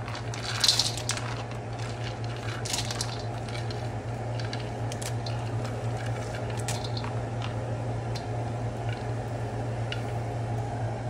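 Almonds and pistachios sizzling in ghee in a wok, a steady frying hiss with a few faint crackles, over a constant low hum.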